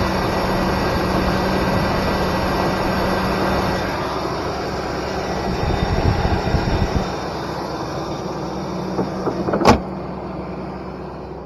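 Engine of a GMC Sierra pickup idling steadily under its open hood. Near the end there is one sharp, loud slam as the hood is shut, and the engine keeps idling.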